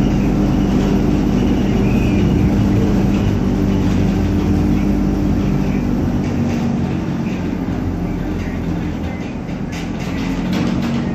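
ZiU-682 trolleybus running, a steady electric hum that dies down a little past halfway and picks up again near the end.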